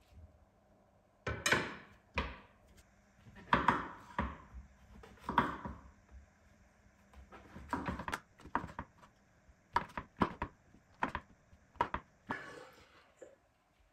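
Kitchen knife cutting button mushrooms on a wooden cutting board: a string of sharp knocks of the blade on the board, coming faster in the second half, after a few louder knocks and scrapes in the first half.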